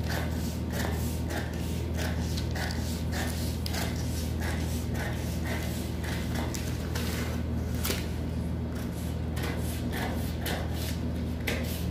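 Large fabric scissors cutting through brown pattern paper, snipping at a steady pace of about one and a half snips a second, over a steady low hum.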